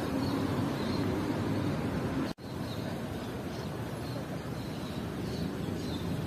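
Steady city traffic rumble, with faint short high chirps repeating over it. The sound breaks off for an instant about two seconds in.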